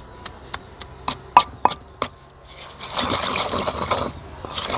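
Wooden pestle striking in a stone mortar, pounding dried red chillies and pomegranate seeds moistened with a little water: sharp knocks about three a second, then, from about three seconds in, a longer wet crunching grind as the pestle is worked into the paste.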